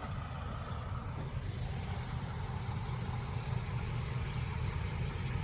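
Vehicle engine idling: a steady low rumble that grows slightly louder toward the end.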